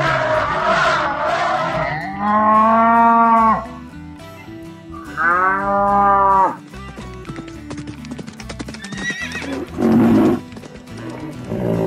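Cartoon animal sound effects over children's background music: a cow mooing in a long call about two seconds in, a second similar long call about five seconds in, and a short noisy animal call near the end.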